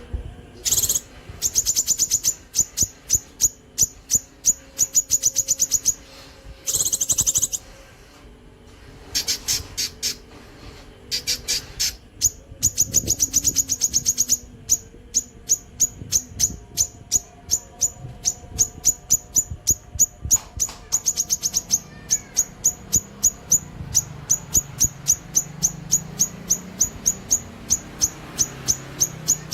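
Cucak kinoi songbird singing in rapid repeated sharp, high notes, about three a second, broken by several fast trilled runs in the first half. This is the long 'nembak' shooting-style song.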